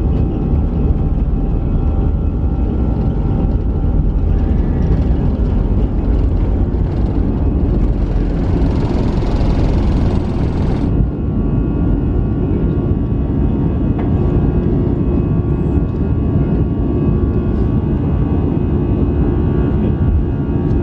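Airbus A320 jet engines at takeoff thrust, heard inside the cabin beside the wing: a loud, steady roar with fixed fan tones through the takeoff roll and climb-out. A hissing rush swells about eight seconds in and cuts off suddenly about three seconds later.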